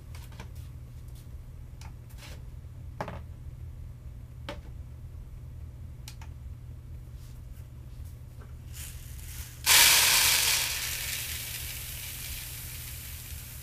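Malted brewing grain poured from a plastic bucket into a plastic bowl on a scale: a sudden loud rushing hiss of kernels pouring, starting about ten seconds in and tailing off over the next few seconds. Before it come a few light knocks and clicks as the bucket and bowl are handled.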